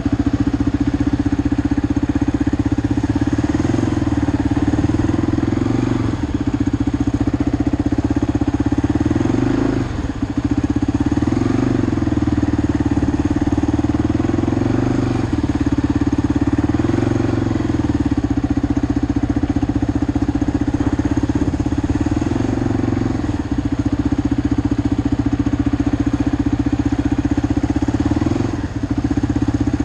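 Quad (ATV) engine running under way, its note rising and dropping every few seconds as the throttle is opened and eased off.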